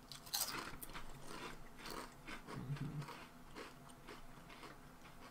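Two people biting into and chewing kettle-cooked potato chips: crisp crunches, many in the first three seconds, fewer after.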